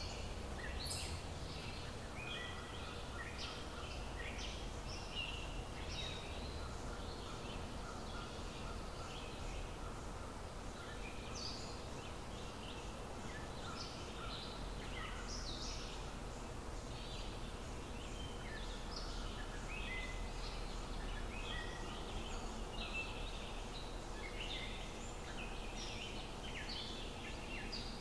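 Birds chirping and calling, many short calls one after another, over a steady low rumble of outdoor noise.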